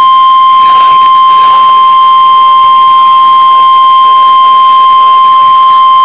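NOAA Weather Radio's 1050 Hz warning alarm tone, a single loud, steady tone played through a portable speaker; it signals that a warning, here a test tornado warning, is about to be broadcast.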